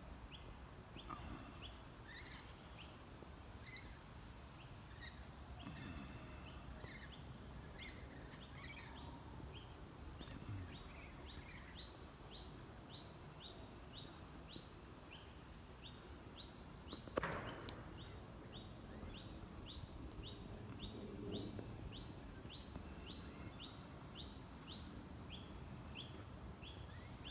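Birds chirping faintly. The calls are scattered at first, then settle into a steady run of short high chirps at about two a second. There is a single brief thump about two-thirds of the way through.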